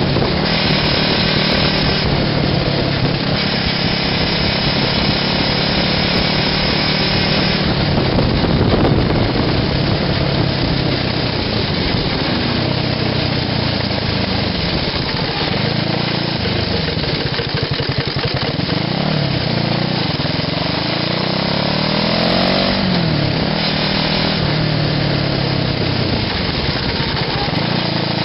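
Small buggy engine running steadily as the buggy drives along the road; in the second half its pitch rises and falls several times as it revs up and down.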